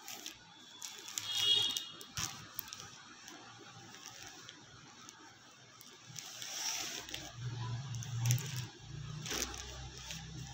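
Intermittent rustling and light knocks of folded silk sarees being handled. A brief high chirp comes about a second and a half in, and a low hum joins in the second half.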